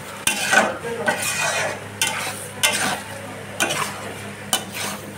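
Metal spatula scraping and stirring thick paneer masala in a metal kadai, with a scrape roughly every second over the sizzle of the masala frying in oil.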